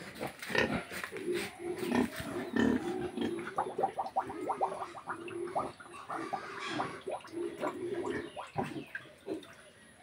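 Domestic pigs grunting over and over, a near-continuous run of short low grunts.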